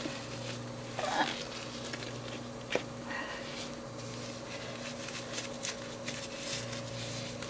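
Soft rustling of a disposable diaper being put on and fastened, with one small click, over a steady low hum.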